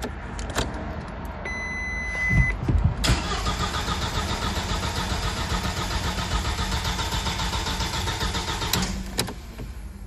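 A steady beep sounds for about a second, then the 1999 VW Passat 1.8T's starter cranks the engine with an even rhythm for about six seconds and stops without the engine catching: it turns over but won't fire, a no-start traced to a faulty main (Haupt) relay.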